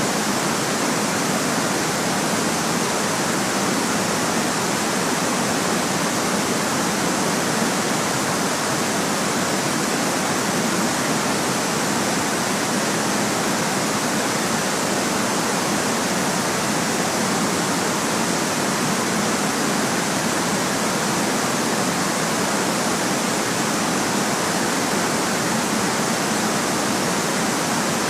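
Steady, unchanging white-noise hiss, an even rush with little deep rumble.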